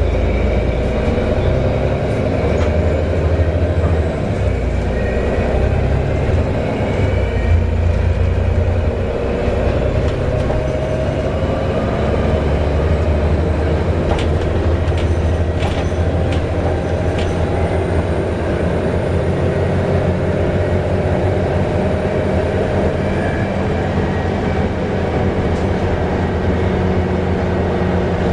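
Volvo B7TL double-decker bus under way, heard from on board: a loud, steady engine and drivetrain drone with whining tones that drift slowly in pitch, and a few rattling clicks about halfway through.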